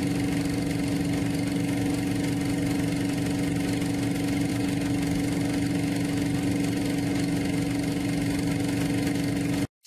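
Steady mechanical whirr of a film projector running, a constant hum with a faint high tone over it, cutting off abruptly just before the end.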